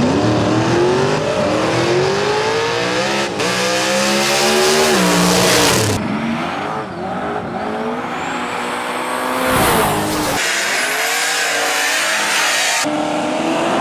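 Drag cars accelerating hard down the strip, their engine pitch rising in long sweeps. The sound comes in several clips edited together, with abrupt changes between them.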